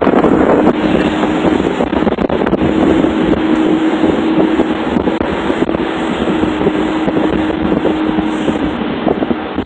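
Strong wind buffeting the microphone, with a steady hum running underneath it that stops near the end.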